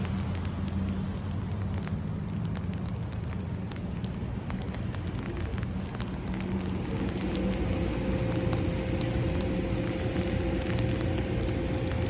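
Outdoor background noise: wind crackling on the microphone over a low hum, with a steady mid-pitched tone coming in about seven seconds in.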